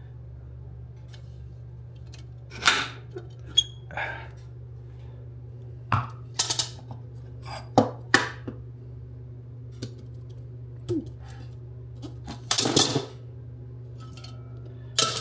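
Metal bread-machine pan knocking and clattering against the machine and a wooden countertop as it is lifted out and handled, its wire handle clinking: about a dozen scattered knocks and clinks, a few close together, over a steady low hum.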